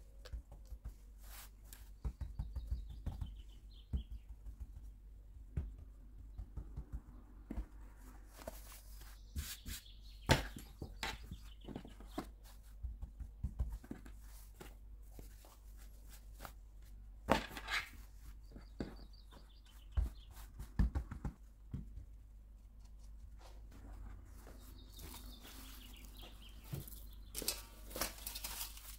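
Hands pressing and stretching pizza dough on a floured countertop: soft pats and rubbing with scattered sharp taps against the counter. Faint bird chirps come in a few times in the background.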